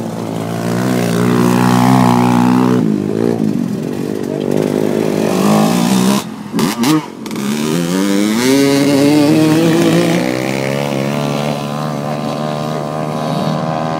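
Dirt bike engines revving, the pitch rising and falling as the throttle opens and closes. Just past halfway there is a brief break, then an engine revs up loudly again and carries on at a steady pitch.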